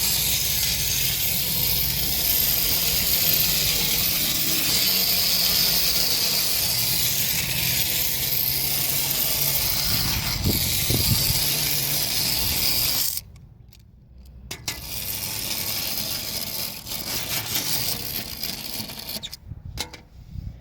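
Clockwork spring motor of a tin wind-up toy car running with a steady, high whir, which cuts off suddenly about thirteen seconds in as the car stops. Quieter uneven sounds follow.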